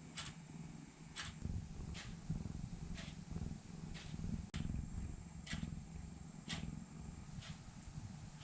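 Domestic cat purring close up, a low steady rumble. Over it, a short high chirp repeats about once a second.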